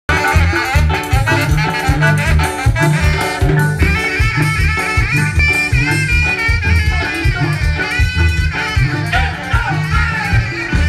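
Live Mexican banda brass band playing, amplified through large speaker stacks: sousaphones pulse a steady bass line under the melody horns.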